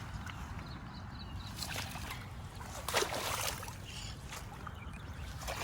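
Water sloshing and splashing, with one louder splash about three seconds in, over a steady low rumble.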